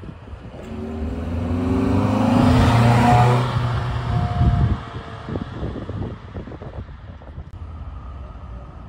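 A classic car accelerating past, its engine pitch rising as it gets louder, loudest about three seconds in. It revs up briefly once more, then fades to a low rumble as it moves away.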